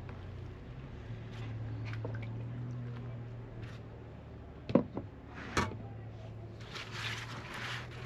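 Kitchen handling sounds: a few sharp knocks or clinks a little before halfway, then a soft wet squishing rustle near the end, over a steady low hum.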